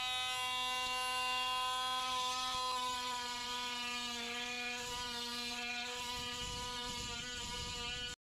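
Handheld electric grinder winding up to speed and then running with a steady whine, its pitch sagging slightly a couple of times. It is being used to cut back the marble threshold under the shower screen.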